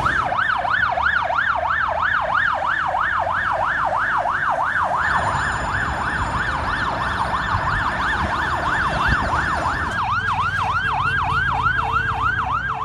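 Emergency vehicle siren wailing in a fast yelp, rising and falling about three times a second. Its tone shifts slightly about ten seconds in.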